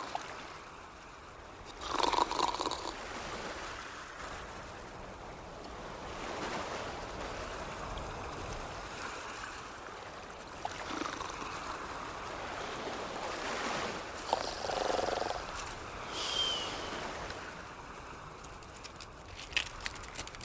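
A person snoring in slow breaths, some swells louder than others.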